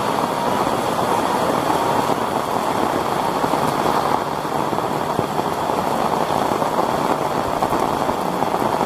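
Heavy rain falling steadily, an even hiss of drops with no letup.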